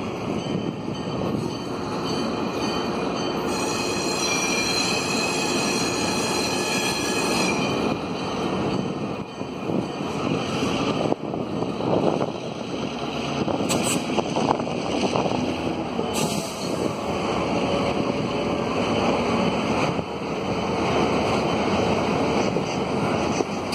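CN EMD GP9 diesel-electric switcher locomotives rolling slowly over a steel railway bridge, a steady engine and wheel rumble. A high-pitched wheel squeal rises over it for about four seconds near the start, and a few sharp clicks from the wheels and cars come through near the middle.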